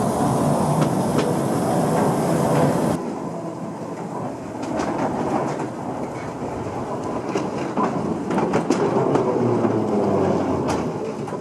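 Narrow-gauge panoramic train running, with a small diesel locomotive: first heard riding in the open car behind the locomotive, then, after a sudden cut about 3 seconds in, the locomotive and car rolling close by. Wheels click over the rail joints throughout.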